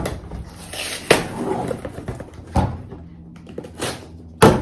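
Cardboard box being opened and its contents handled: a few sharp knocks and thumps about a second apart with a papery rustle between them, the loudest thump near the end.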